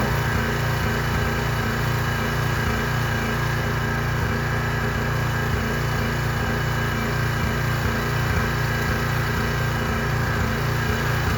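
Gas pressure washer's small engine running steadily at a constant speed, with an even hiss of spray over it.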